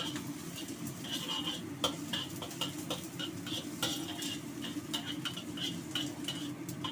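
Metal spatula scraping and tapping against a heavy black Chinese wok, about two to three strokes a second, as minced ginger is stirred in hot oil with a faint sizzle. A steady low hum runs underneath.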